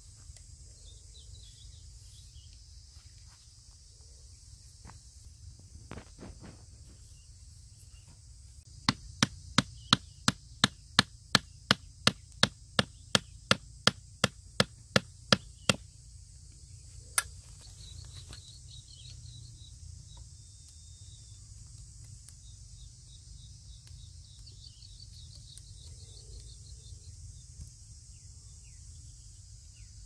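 Hammer driving a wooden stake into the ground: a run of about twenty sharp, evenly spaced blows, about three a second, lasting some seven seconds, then one more blow after a short pause. A steady insect buzz goes on underneath.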